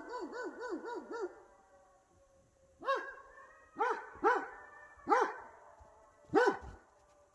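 Coyotes calling: a fast, warbling chorus of yips for about a second and a half, then five single sharp barks spread over the next few seconds, with faint long howls held underneath.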